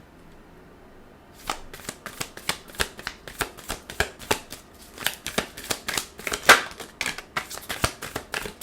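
A Light Seer's Tarot deck being shuffled by hand: a quick run of papery card flicks and snaps, several a second, starting a little over a second in.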